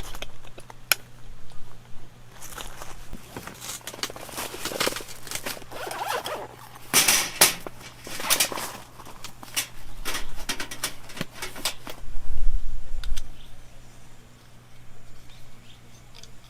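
Gear being handled: irregular rustling, scraping and sharp clicks in short bursts, the loudest about seven seconds in, with a low bump a little after twelve seconds.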